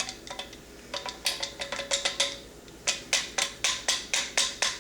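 Metal barrel band of a Marlin 336 rifle clinking and tapping against the barrel and magazine tube as it is worked down into place. There are irregular clicks early on, then a quicker run of about three to four taps a second with a slight metallic ring.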